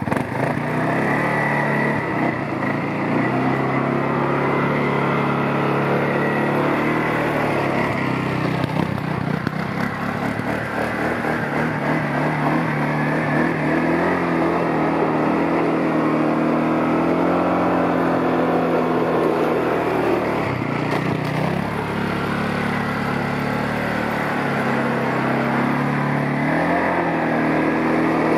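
CFMOTO CForce 625 ATV's single-cylinder engine held on the throttle while spinning all-wheel-drive donuts on wet ice. The engine note rises and falls, with brief drops in revs about ten and twenty-one seconds in.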